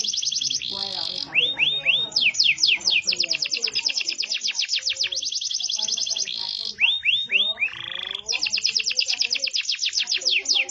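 Domestic canary singing a long song of rapid trills, runs of quickly repeated falling notes, and a few brief harsh rasping notes.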